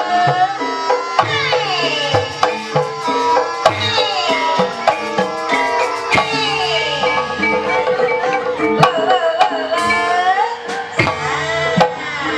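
Live Javanese ebeg accompaniment: kendang hand drums keeping a rhythm under sustained metallophone tones and a melody line that slides up and down in pitch.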